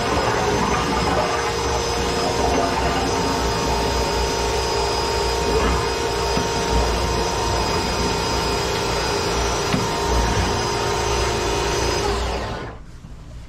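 Cordless drill spinning a flexible drain-cleaning shaft in a blocked kitchen sink drain, running steadily with a constant whine, then stopping about twelve and a half seconds in.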